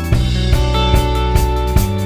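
Background music with a steady drum beat, about two hits a second, over sustained instrument tones.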